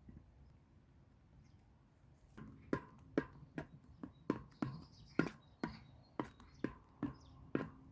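A regular series of sharp knocks, about two or three a second, starting roughly two and a half seconds in.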